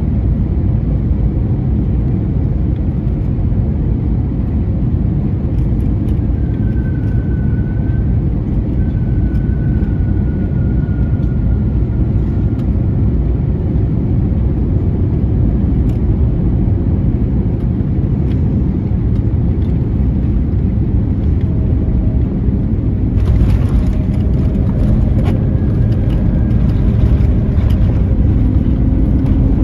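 Steady loud rumble of engines and rushing air inside an Airbus A321neo cabin, with a faint, slightly falling engine whine a few seconds in. About 23 seconds in, a louder hiss with crackling joins the rumble.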